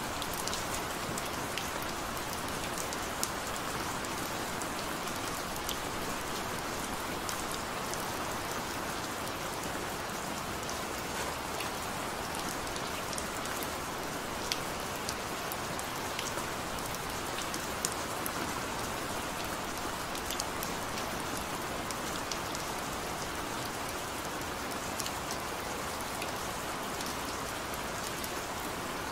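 Gentle, steady rain: an even hiss with scattered sharp ticks of single drops.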